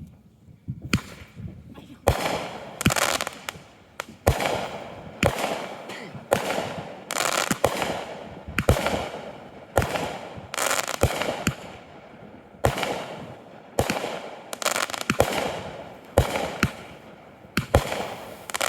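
Consumer fireworks going off in a steady run of sharp bangs, about one a second, each trailing off over a second or so.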